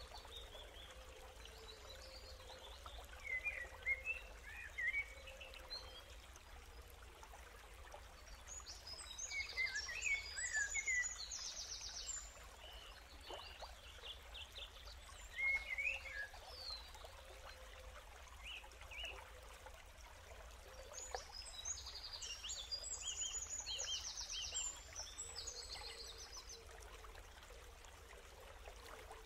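Nature ambience: birds chirping, with two bursts of rapid high trills, over a steady hiss of running water and a low rumble.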